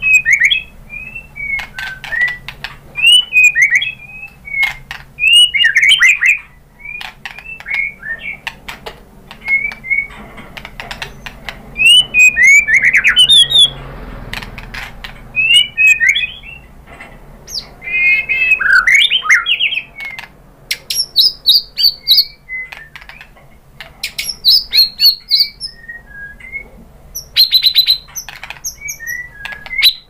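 White-rumped shama (murai batu) singing in loud, varied bursts: swooping whistles, harsher chattering notes and quick runs of repeated notes, one phrase after another with short pauses between them.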